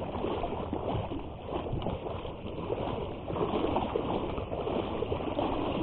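Small waves lapping and splashing around a kayak, an irregular sloshing with no steady rhythm.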